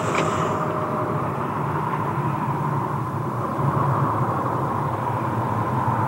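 Steady rushing, rumbling ambient sound effect, a continuous bed with a low throb underneath, in a dubbed anime soundtrack.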